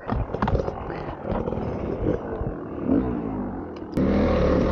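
Dirt bike engines idling unevenly with wind on the microphone. About four seconds in, this gives way abruptly to a Honda CRF300L's single-cylinder engine running steadily and louder as the bike is ridden.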